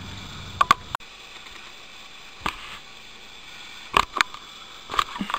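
Handheld camera being handled and moved: a handful of short clicks and knocks, the loudest about four seconds in, over faint room hiss. A low outdoor hum cuts off abruptly about a second in.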